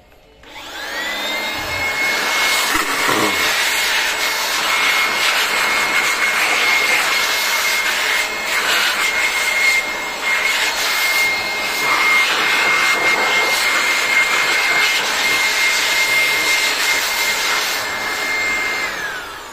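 Handheld electric air blower switched on, spinning up to a steady high whine over a strong rush of air as it blows dust out of an opened colour laser printer. About a second before the end it is switched off and the whine falls away as the motor winds down.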